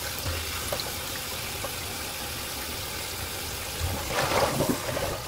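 Tap water running steadily into a metal bowl in a stainless steel kitchen sink. About four seconds in there is louder splashing as a hand swishes the water in the bowl.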